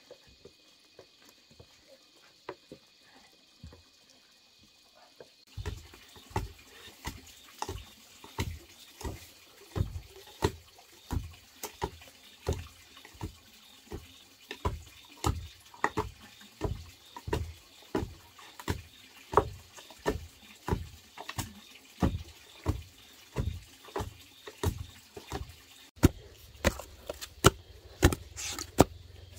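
Steady rhythmic striking, each blow a sharp knock with a low thud, about one and a half blows a second. It starts about five seconds in and runs faster after a cut near the end.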